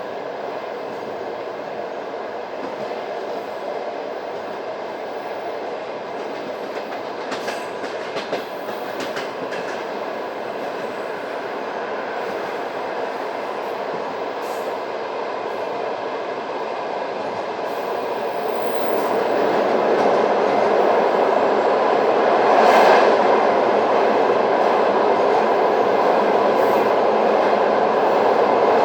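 Passenger train rolling along the track, a steady rumble of wheels on rails with a few sharp clicks about eight seconds in. It grows louder from about two-thirds of the way through, swelling briefly twice.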